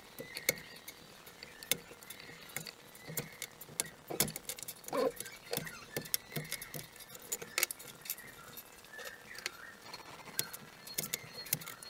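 Irregular light clicks and taps of small 3D-printed plastic parts being handled on the printer bed, and of a hobby knife trimming the stringing off them.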